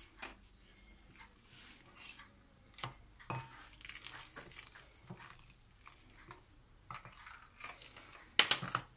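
A metal fork stirring flour in a glass bowl, scraping and clinking lightly against the glass, with a few sharper knocks near the end.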